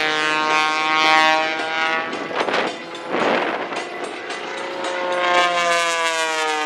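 Pitts S2S aerobatic biplane's six-cylinder Lycoming engine and propeller buzzing through an aerobatic routine, the pitch sliding down over the first couple of seconds, giving way to a rushing noise in the middle, then climbing and falling again near the end as the power and angle change.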